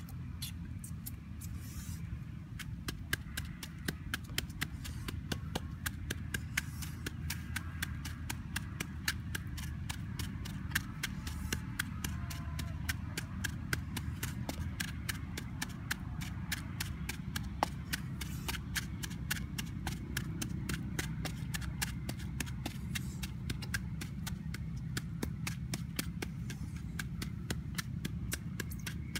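Wooden pestle pounding in a small coconut-shell bowl: a fast, even run of sharp taps, a few a second, starting about two seconds in, over a steady low rumble.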